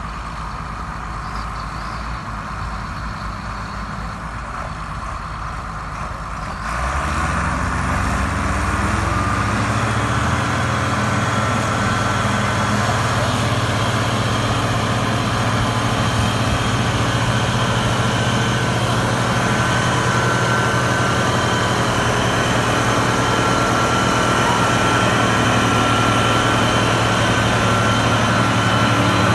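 Heavy diesel engines of farm tractors towing a loaded truck out of the mud: idling low at first, then about seven seconds in they throttle up with a rising pitch and settle into a steady, loud pull under load, with a thin whine riding on top.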